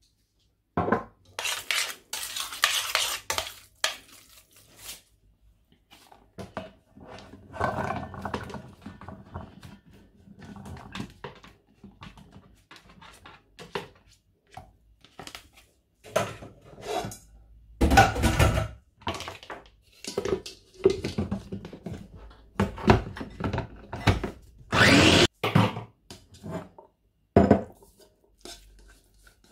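Pots, a stainless steel bowl and utensils clinking, knocking and scraping as food is stirred and handled, in irregular separate strokes with a few louder clatters in the second half.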